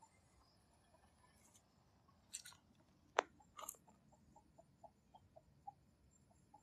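Near silence, with a few faint clicks and crunches a little past the middle, one sharp click among them, and light irregular ticking after.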